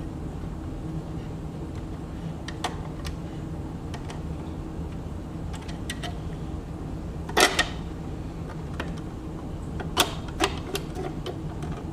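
Plastic sewing-machine cover and trim pieces clicking and knocking as they are handled and fitted, in scattered sharp clicks with a louder double knock about seven and a half seconds in and another about ten seconds in.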